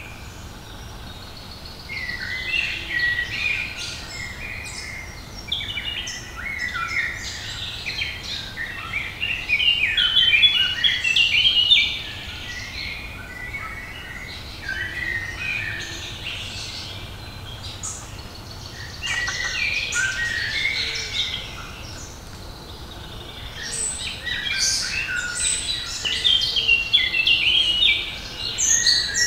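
Several songbirds singing at once: a dense chorus of overlapping chirps, trills and short whistled phrases, loudest about ten to twelve seconds in and again near the end.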